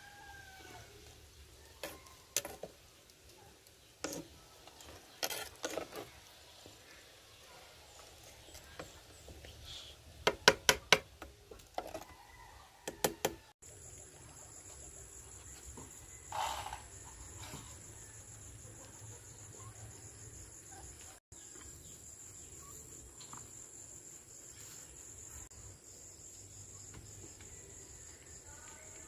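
A metal ladle clinking and knocking against a clay cooking pot and a ceramic bowl as soup is served, a string of sharp knocks with a quick cluster about ten seconds in. After a sudden cut there is outdoor ambience with a steady high insect drone.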